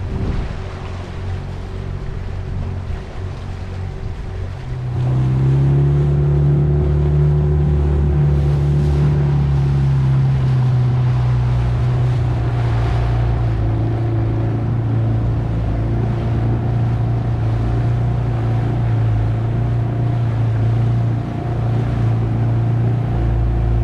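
Wind and water rushing past a moving boat with a low steady engine hum; about five seconds in, a louder outboard motor takes over, running steadily as a dinghy moves along, its pitch easing a little lower a few seconds later.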